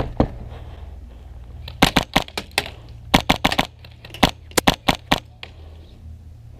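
Airsoft gun firing sharp single shots in quick strings: two at the very start, then about a dozen more in short bursts from about two seconds in until just past five seconds.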